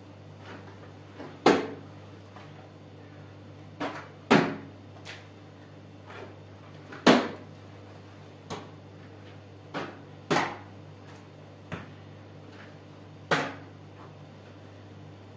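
Plastering trowel scooping mortar from a plastic bucket and throwing it onto a rough wall: a sharp knock or slap every second or two, the loudest about every three seconds.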